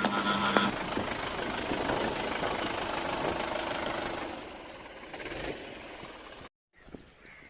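Tractor engine running steadily, getting quieter about four seconds in and cutting off abruptly near the end.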